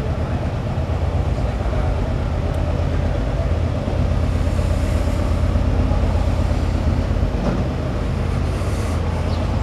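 Steady low engine rumble of slow-moving vehicles towing parade floats.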